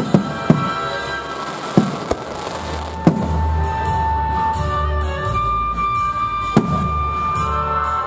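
Fireworks shells bursting, about five sharp bangs at uneven intervals with a ringing tail, over music with long held notes and a steady bass.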